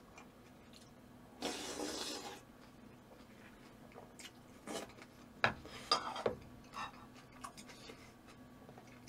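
A person eating quietly: a short noisy sound about a second and a half in, then scattered small clicks and brief mouth noises.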